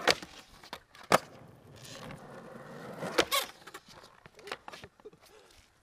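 Skateboard on asphalt and a concrete ledge: wheels rolling, with loud clacks of the board hitting the ledge and ground right at the start, about a second in, and a quick double clack about three seconds in. A few fainter knocks follow near the end.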